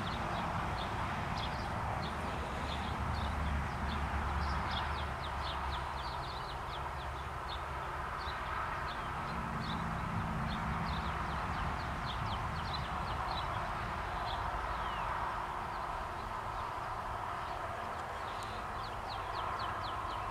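Outdoor ambience: many small birds chirping with short, high notes over a steady rushing background and a low rumble.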